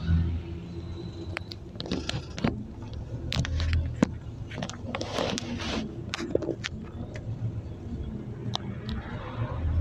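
Cabin sound of a Scania OmniCity 12 m city bus on the move. A steady low engine hum runs under frequent sharp rattles and clicks from the bus interior, with a brief rush of noise about five seconds in.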